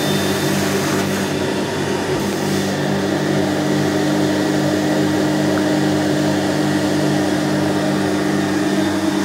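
Carpet extraction cleaner running steadily, its suction drawing through the wand as the wand is pulled across a rug, with a constant low hum under the rush of air.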